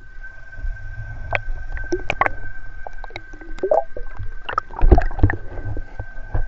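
River water gurgling and sloshing around a camera held at the water surface, with many sharp clicks and knocks, loudest about five seconds in. A faint steady high tone runs underneath.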